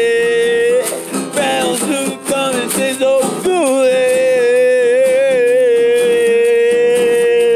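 A singer holding long notes over strummed acoustic guitar: one note ends under a second in, and another is held from about halfway, wavering in pitch.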